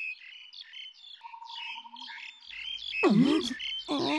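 Background of many small birds chirping in quick short notes, with a faint buzzy trill about a second in. Near the end come two short vocal sounds with sliding pitch.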